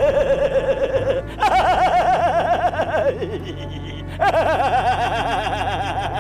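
High-pitched laughter in three bouts of quick, pulsing "ha-ha-ha", the second sliding down in pitch as it fades, over quiet background music.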